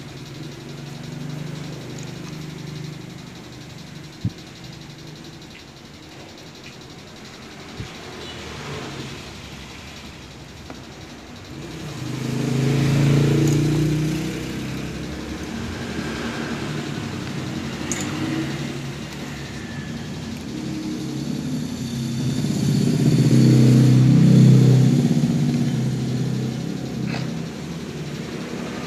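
Engine noise of passing motor vehicles, swelling up and fading away twice, about twelve and twenty-three seconds in. A few faint clicks are heard earlier.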